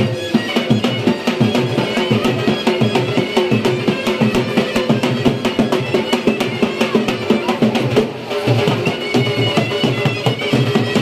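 Live dance music: a dhol (double-headed barrel drum) is beaten in a quick steady rhythm, with a surnai (shawm) playing a reedy melody over it.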